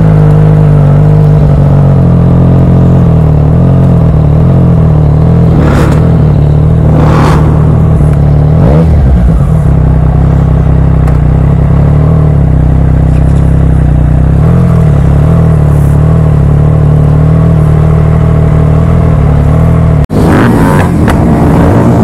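Triumph Street Triple 765 RS's three-cylinder engine idling in neutral just after start-up, the idle easing down from about 2,200 to about 1,300 rpm. The sound cuts out briefly near the end.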